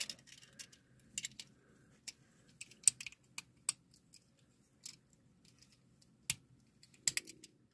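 Small sharp plastic clicks and ticks, irregular and scattered, as plastic tuning bodywork parts are handled and pressed onto a die-cast toy car.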